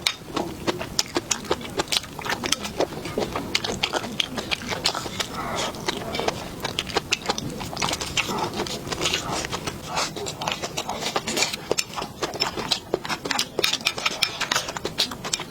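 Close-miked eating: wet chewing and smacking mouth clicks, several a second.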